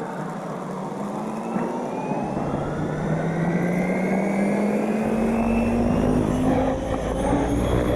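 Electric RC helicopter in flight: its rotor and motor whine rise slowly in pitch.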